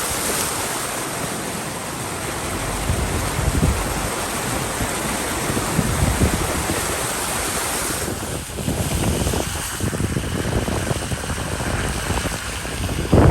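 Floodwater rushing and splashing around a Jeep Wrangler JK as it drives through the flooded road, with wind buffeting the microphone. The hiss eases a little about eight seconds in.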